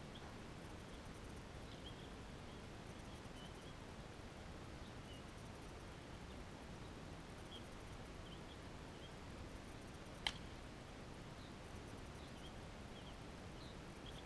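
A bat striking a ball once, a single sharp crack about ten seconds in, over faint steady background noise with scattered small bird chirps.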